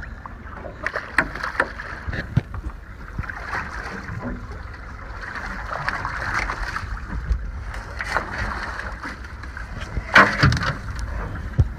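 Knocks and thumps of a large tuna being gaffed and hauled aboard a fishing boat, over a steady noise of wind and water; the loudest, sharpest thud comes about ten seconds in.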